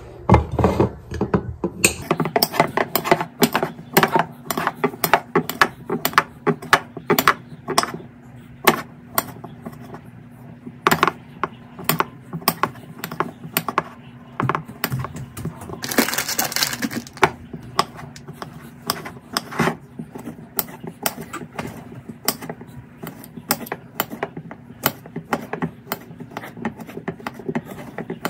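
Kitchen knife chopping hot dogs on a plate: the blade knocks down onto the plate in quick, irregular clicks, a few a second. There is a brief rustle a little past halfway.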